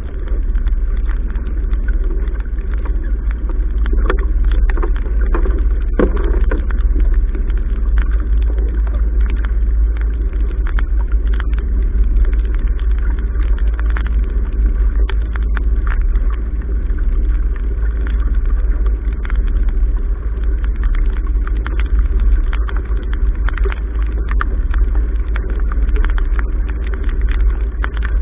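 Wind buffeting the microphone of a camera on a sailboat's bow, a loud steady low rumble, over the rush of water along the hull as the boat sails through choppy sea. Scattered small ticks run throughout, with a few louder knocks about four to six seconds in.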